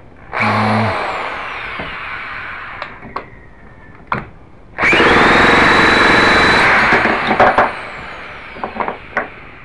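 Electric starter spinning the K&B .91 glow engine and Byron ducted fan twice without the engine catching: a short spin, then a longer louder one with a whine that rises and holds steady, each winding down afterwards with a falling pitch. The owner puts the failure to start down to fuel not yet drawn up to the engine.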